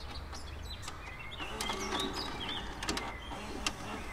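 Faint background ambience: short high chirps and scattered sharp clicks over a steady low hum.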